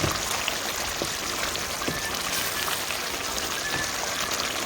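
Chicken cooking in a pan, sizzling in its oil: a steady crackling hiss with scattered small pops.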